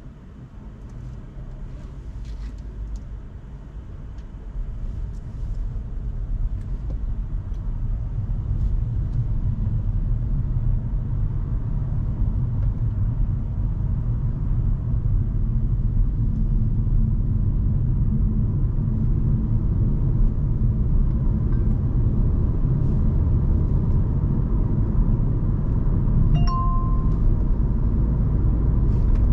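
Hyundai Kona Hybrid driving, its road and tyre rumble heard from inside the car and growing louder over the first half. A short electronic chime sounds near the end.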